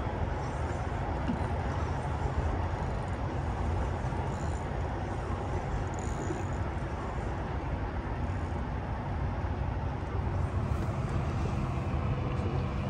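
Steady road-traffic noise from vehicles crossing the highway bridge overhead, with a constant low hum.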